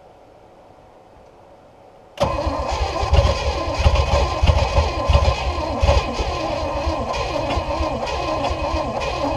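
Small-block Chevy 350 inboard boat engine being cranked over by its starter, starting suddenly about two seconds in and turning over steadily with a quick repeating pulse. It keeps cranking without catching and running, as the long-neglected engine fails to start.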